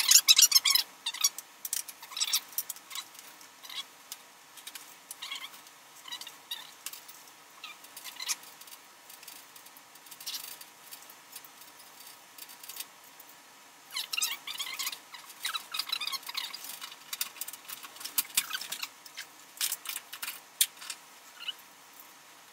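Electrical wires being handled and reconnected in an open fluorescent light fixture: light, scratchy clicks and rustles that come in irregular clusters. They are busiest at the start and again about two-thirds of the way through.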